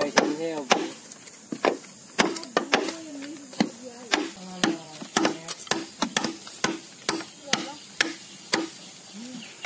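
Machete hacking into the base of a thick green bamboo culm, sharp chopping strokes about twice a second.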